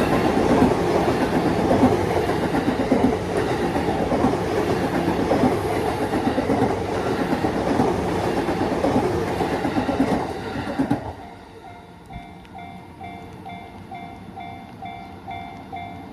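A train passing over a level crossing, its wheels clattering on the rails, until the sound drops away suddenly about eleven seconds in. The crossing's electronic warning bell is then heard ringing, a little over two dings a second, the sign that the barriers are still down.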